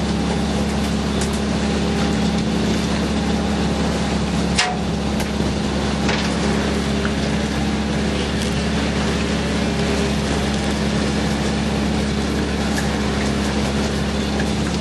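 A fishing boat's engine running with a steady low hum under a constant wash of noise, with a single sharp knock about four and a half seconds in and a few faint ticks.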